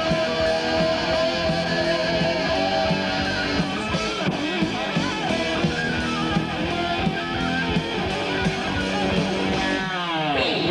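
Heavy metal band playing an instrumental passage, led by a distorted electric guitar over bass and drums. The lead guitar holds a long note at the start, plays a melodic line, and near the end its pitch swoops steeply downward.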